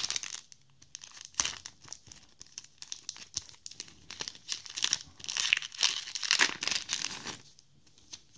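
Foil booster-pack wrapper of a trading-card pack being torn open and crinkled in the hands, in a series of short crackling tears that grow densest and loudest about five to seven seconds in, then stop.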